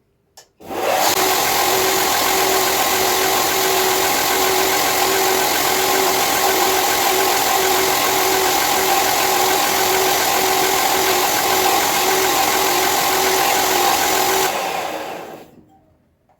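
Belt grinder running with a worn 120-grit belt, grinding a new tip onto a broken kitchen knife blade. The machine comes up to speed about a second in, runs as a steady loud whir with a grinding hiss, and then winds down near the end.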